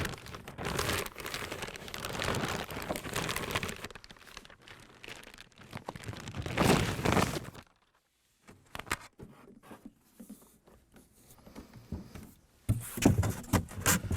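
Plastic packaging crinkling and rustling as a boxed audio analyzer is unwrapped and lifted out, in several bursts with a few knocks and a short pause about halfway through.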